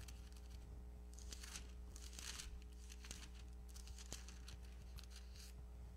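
Pages of a Bible being turned at a pulpit: several soft, faint paper rustles while the place in 1 Corinthians is found, over a steady low hum.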